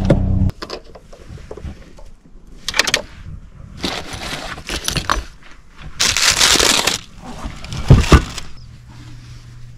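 Gear being handled and packed by hand in a car's cargo area: rustling and clicking of bags and objects, a rasping swish about six seconds in, and two loud thumps about eight seconds in. A steady hum cuts off about half a second in.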